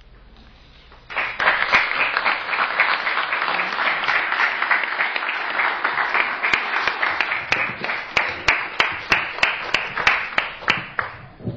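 Audience applauding. The clapping starts suddenly about a second in, then thins toward the end into a few separate claps, about three a second, before stopping.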